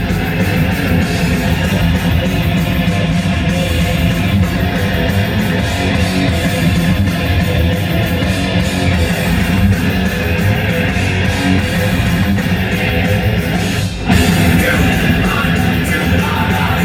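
Rock music with guitars playing on a car's CD stereo, steady and loud, dipping for an instant about fourteen seconds in.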